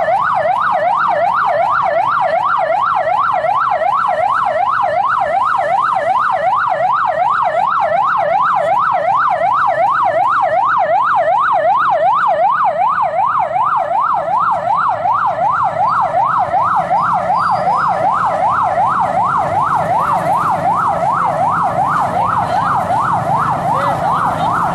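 Police vehicle siren on a fast yelp, a rapid rising-and-falling wail repeating several times a second without a break.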